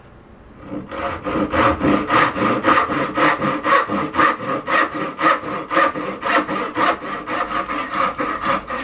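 Wooden-handled backsaw cutting across the end of a pine board, trimming a little off a dovetail. Quick, even back-and-forth strokes start about a second in.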